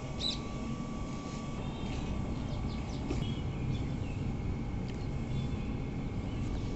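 Steady low rumble with a faint steady whine above it, and a few short bird chirps, one of them just after the start.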